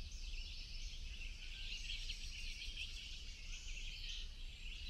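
Faint woodland ambience: a steady, dense chorus of high bird chirping over a low rumble.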